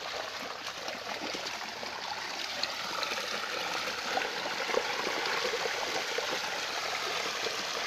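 Shallow stream water running steadily over and through a mesh fishing net, with scattered small splashes and crackles as a hand works through wet debris in the net.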